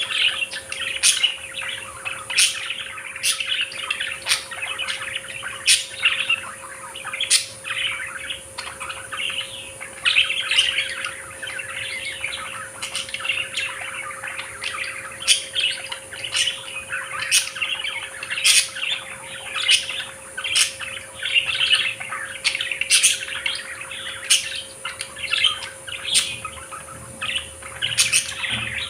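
A flock of budgerigars chattering and warbling without a break, with sharp high-pitched chirps every second or two.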